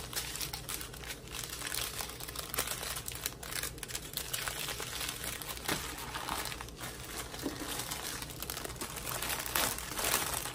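Clear plastic bags crinkling and crackling as a bundle of small zip-lock bags of diamond-painting drills is squeezed and pushed back into a larger plastic bag.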